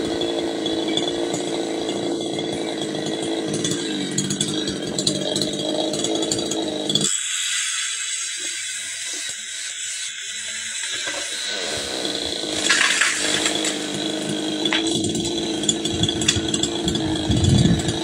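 Chainsaw running at high revs, cutting into the top of a tree trunk. About seven seconds in the engine drops away for a few seconds, then comes back up and is at its loudest near the end.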